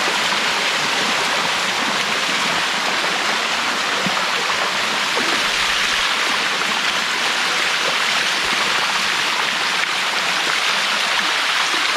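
Waterfall water rushing steadily down the rock cascades, a continuous even hiss of flowing water.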